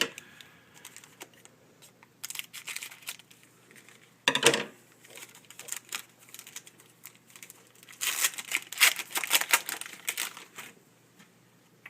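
Foil trading-card pack wrapper crinkling and tearing as a hockey card pack is opened, in bursts: a short loud rip about four seconds in and a longer run of crinkling from about eight to ten and a half seconds in.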